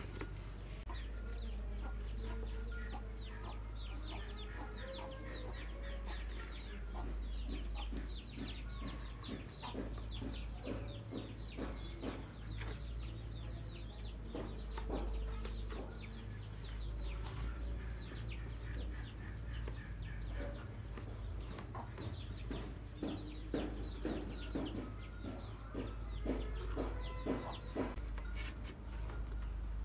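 Chickens clucking and cheeping, many short falling calls in quick succession, over scattered knocks and rubbing as an old bicycle tyre is worked off its rim by hand.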